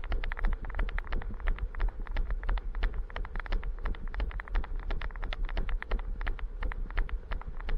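Goat grazing, heard at very close range through a camera worn on its own collar: rapid, irregular crackling clicks of grass being torn and chewed, several a second, over a steady low rumble.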